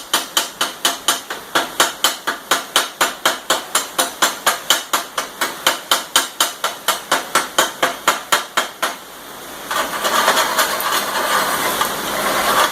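Chipping hammer knocking slag off a fresh weld bead, rapid sharp metal strikes at about four a second. The strikes stop about nine seconds in and a steady rough hiss follows.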